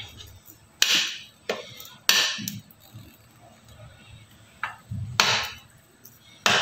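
Small metal offset spatula scraping and tapping while chocolate ganache is smoothed around a cake on a turntable: about six short, sharp strokes, three in the first two seconds and three more after about four and a half seconds.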